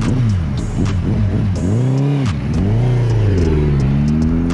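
Sport motorcycle engine revved up and down in repeated swells as the bike pulls away, its pitch climbing again near the end.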